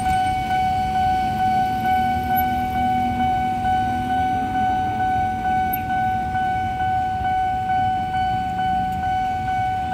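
Railway level-crossing warning alarm sounding a continuous, high electronic tone while the barrier is down, over low traffic rumble.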